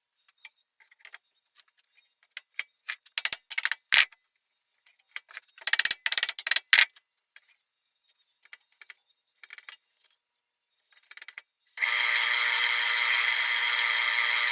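Small items and tools clicking and clattering as they are handled on a workbench. About twelve seconds in, a small power tool motor starts and runs at a steady pitch.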